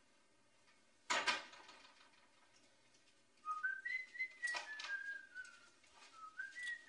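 A person whistling a short, wandering tune, starting about halfway through. A single sharp knock comes about a second in.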